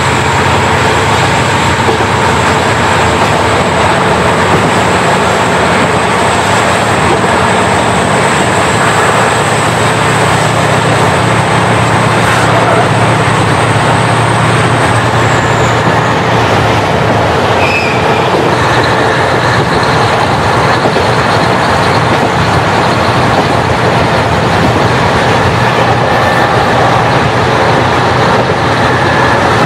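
KiHa 40 diesel railcar running at speed, heard through an open window: steady rush of wind, wheels on rail and the diesel engine. A high whine falls away about halfway through, and the low engine hum eases at the same time.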